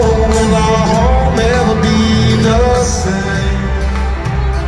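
Live band music played over an arena sound system, with a singer's voice over heavy bass and drums, heard from the stands.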